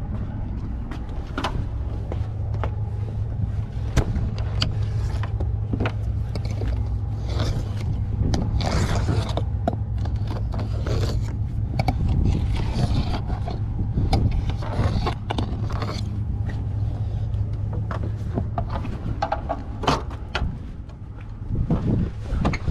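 Hand-tool work on a truck windshield: repeated scraping and sharp clicks, over a steady low hum.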